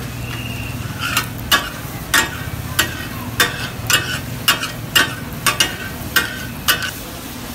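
Steel spatula blades chopping and scraping a kata kat offal mix on a large flat tawa griddle: the sharp metal-on-metal clacks of taka tak, about two a second, starting about a second in and stopping near the end. Under them the food sizzles steadily on the hot griddle.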